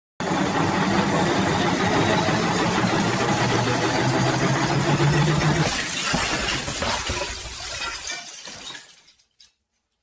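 Washing machine driven far over its rated voltage (550 V), its motor and drum running with a steady hum. About six seconds in comes a crash as the machine breaks apart and its door flies off. The noise then dies away to nothing.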